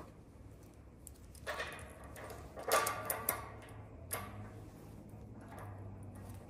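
Steel bolts and nuts clinking against a steel table top as they are fitted through it to mount a bench vise: a few scattered clicks and rattles, the loudest cluster about three seconds in, over a faint low hum.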